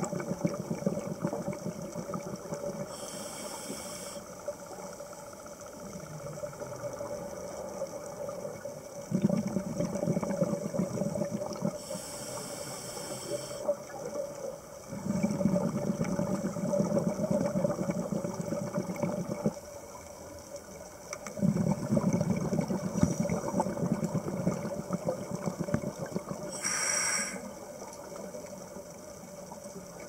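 Scuba diver breathing through a regulator underwater: short high hisses of inhalation and several-second stretches of low rumbling exhaled bubbles, about three breaths, over a faint steady hum.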